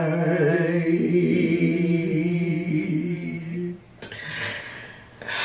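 Two men singing a capella without backing music, holding the last long note of the song for about four seconds. The note then breaks off into quieter, breathy laughter.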